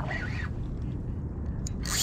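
Wind buffeting the microphone as a steady low rumble, with a short rising-and-falling bird call right at the start and a burst of hiss near the end.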